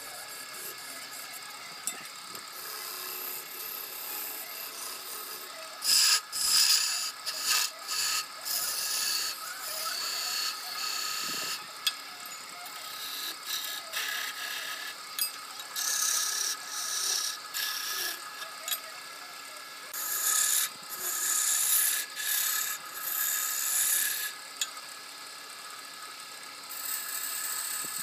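Wood lathe running with a steady hum while a turning tool is pressed against the spinning wood, giving loud scraping, hissing passes a few seconds long, several times over with short pauses between them.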